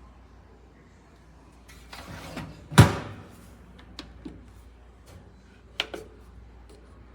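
Knocks and clicks from a countertop oven being handled: a short rustle, then one loud clunk about three seconds in, followed by several light clicks.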